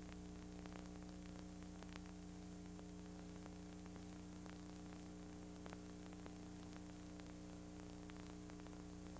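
Faint, steady tape hiss with a low electrical hum and a few scattered faint clicks: the empty audio track of a VHS tape transfer, with no soundtrack playing.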